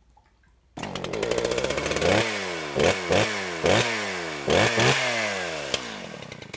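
Two-stroke chainsaw engine starting abruptly about a second in and revved hard in a series of sharp throttle blips, its pitch sliding down after each blip, then fading near the end.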